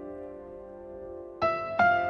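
Background music: soft, slow piano, a held chord fading away, then new notes struck about a second and a half in and again just before the end.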